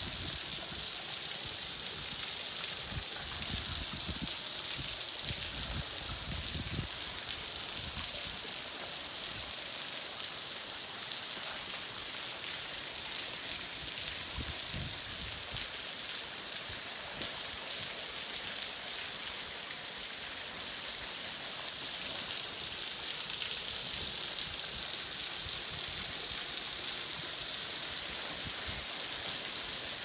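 Thin waterfall dropping from an overhanging rock ledge, its water breaking into scattered drops and spray that splash steadily onto the rocks below, a continuous high hiss of splashing.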